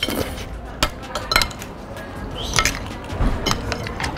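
Metal forks and spoons clinking against ceramic plates as noodles are eaten, a string of separate short clinks.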